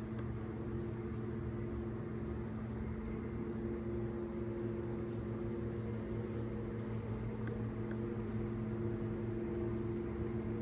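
Steady low mechanical hum made of several held tones over a soft hiss, with faint ticks now and then.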